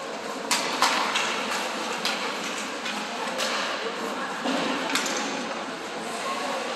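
Ice hockey game sounds in a rink: several sharp clacks of sticks and puck over a steady wash of arena noise and distant voices.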